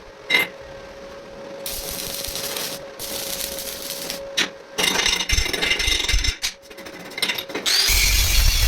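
Metalworking tool sounds: a few sharp knocks and several short bursts of scraping, hissing noise, giving way near the end to a loud, steady noise.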